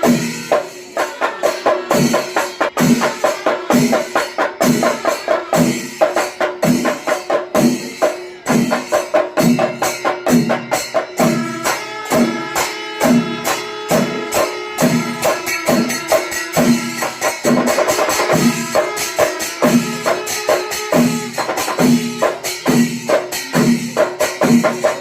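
Percussion-led music: drums beating a steady pulse, with dense cymbal-like clashing and a held, shifting wind-instrument melody over it.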